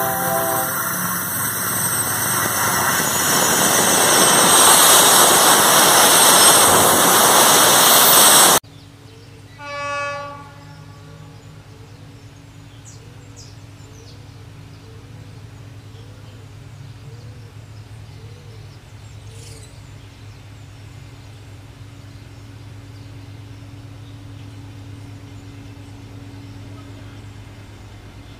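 GE BB36-7 diesel locomotive on a loaded freight train sounding its horn in short blasts, then a loud rumble that keeps building as the train closes on the track-level microphone. After a sudden cut the locomotive is far off, a steady low engine hum, with one short pitched call about ten seconds in and a run of short repeated calls after it.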